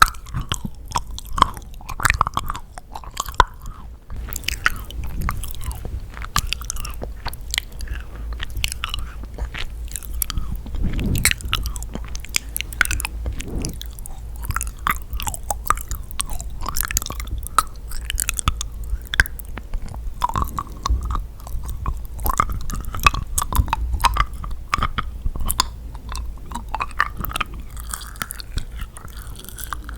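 Close-miked chewing of yakgwa, a honey-soaked Korean fried cookie: sticky, wet mouth sounds with a dense run of small clicks and crunches.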